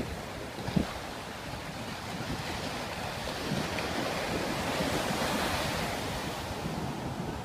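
Sea surf breaking and washing up a sandy beach. The rush swells to its loudest about five seconds in, then eases.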